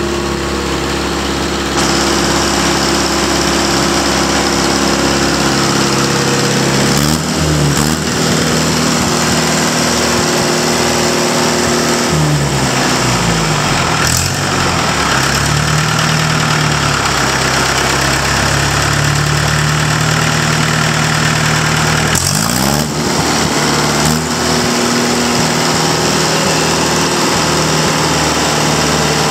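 Continental TMD27 diesel engine running on a test stand, its speed changing several times: the engine note steps about seven seconds in, dips and climbs back around twelve seconds, and sweeps again around twenty-two seconds.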